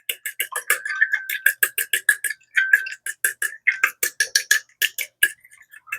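An egg being beaten in a bowl: a utensil taps the bowl in a quick, even rhythm of about seven strokes a second, the bowl ringing a little with each tap. It stops shortly before the end.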